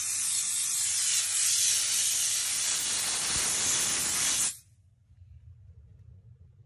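Optima Steamer steam cleaner's spray gun jetting steam, a steady loud hiss that cuts off suddenly about four and a half seconds in.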